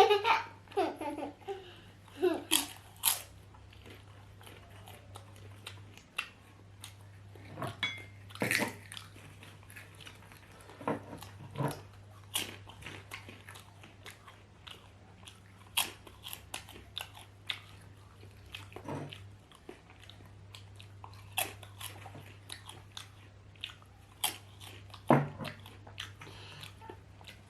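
Close-miked eating sounds: chewing and biting into potatoes, with irregular sharp mouth clicks and smacks spread throughout, over a steady low hum.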